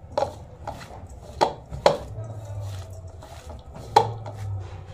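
Chopped banana flower, onion and spices being mixed by hand in a stainless steel bowl: a soft rustle of the mix, broken by about five sharp knocks on the steel bowl.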